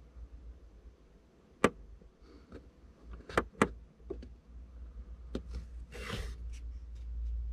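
A few sharp clicks and knocks from the instrument cluster's reset button being pressed and handled to reset the service interval, with a short rustle about six seconds in, over a low steady rumble.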